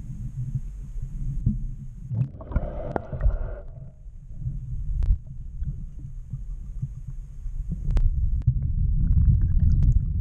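Water moving around an underwater camera's waterproof housing, heard as a muffled low rumble with uneven thudding. Scattered sharp clicks run through it, and a brief muffled mid-pitched sound comes about two and a half seconds in.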